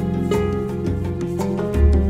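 Instrumental background music with a strong bass line.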